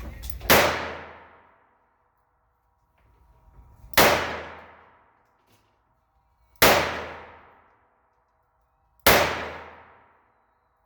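Four gunshots from a Rossi Model 68 five-shot revolver in .38 Special, fired a few seconds apart, each fading out over about a second.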